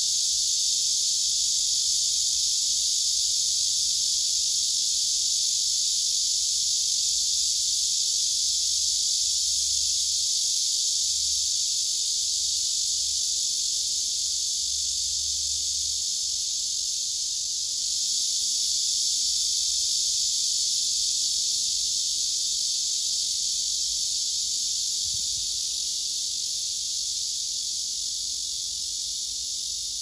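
Cicadas singing in chorus: a dense, steady, high-pitched buzz without breaks.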